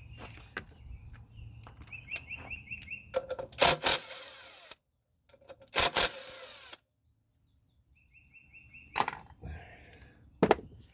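Sharp metallic clanks and knocks of hand tools against engine parts as a component on top of a V6 engine is worked loose, the loudest a quick pair about four seconds in, with a few more scattered hits later.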